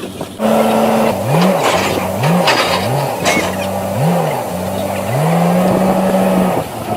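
Heavy-machine engine revving up and down over and over, its pitch rising and falling about once a second, with one longer steady stretch near the end.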